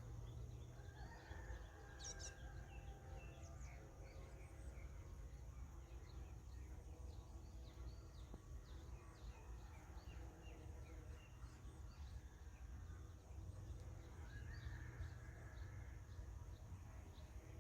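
Faint outdoor ambience: small birds chirping repeatedly over a steady high hiss and a low rumble.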